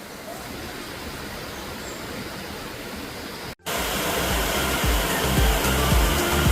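Steady rushing roar of a jungle waterfall. About three and a half seconds in, the sound cuts off for an instant and returns louder, with background music and a low beat of about two pulses a second over the water noise.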